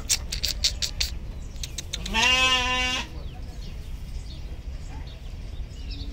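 Sheep bleating once, about two seconds in: a single call of about a second that rises at its start and then holds its pitch. In the first second comes a quick run of sharp clicks.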